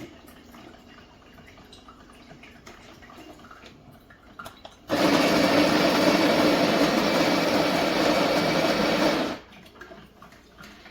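KitchenAid burr coffee grinder's motor running for about four seconds, starting abruptly about five seconds in and then cutting off, after faint clicks of handling.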